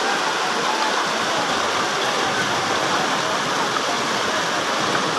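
Muddy flash floodwater rushing steadily down a street, a continuous noise of churning water.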